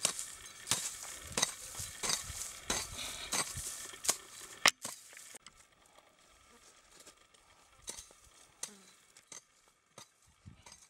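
A long-handled shovel digging into dry, sandy soil: gritty scraping strokes in quick succession, about two or three a second, stopping about five seconds in. After that only a few faint ticks.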